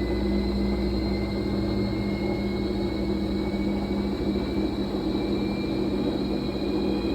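Fisher & Paykel MW059NZ washing machine running with a steady hum and a whine that climbs slowly in pitch, the drum gathering speed on spin.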